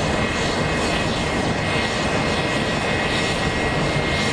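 Fixed-wing airplane engine noise: a steady rush with a thin, high steady whine running through it.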